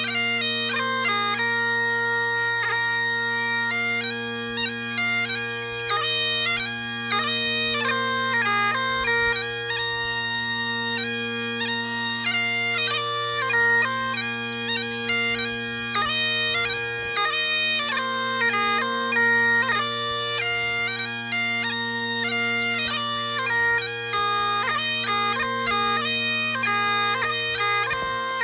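Burley bagpipes playing a quick march-style tune: steady drones sound unbroken underneath while the chanter runs through fast melody notes with quick ornaments.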